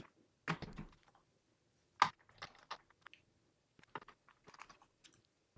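Small screwdriver and screws clicking and ticking as the screws go back into a laptop's bottom cover: scattered faint clicks, a sharper one about two seconds in, and a quick run of small ticks later on.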